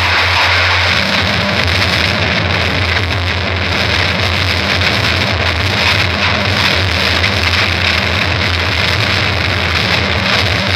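Loud, heavily distorted noise music: a dense, unbroken wall of sound over a steady low drone.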